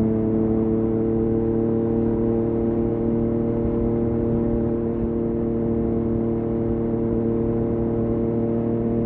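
Yamaha MT-09's three-cylinder engine through an Akrapovic exhaust, running at a steady, nearly constant pitch on a cruise, its note easing down only slightly.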